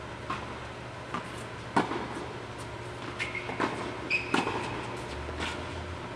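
Tennis balls being struck by rackets and bouncing on an indoor hard court during a doubles rally: a string of sharp pops, the loudest about two seconds in and again past four seconds. Two brief high squeaks of court shoes come in the middle, over a steady low hum.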